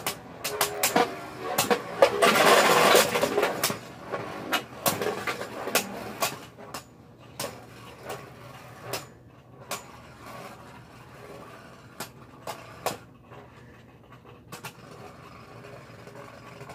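Two Beyblade Burst spinning tops, Epic Evipero and Lost Luinor, clashing in a plastic stadium: sharp clicks as they strike each other and the stadium floor. A dense stretch of rapid clashing comes about two to three and a half seconds in, then scattered clicks over the tops' faint low whir as they spin down.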